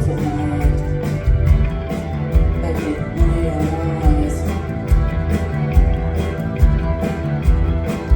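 Post-punk band playing live: drums, bass and electric guitar with a steady beat.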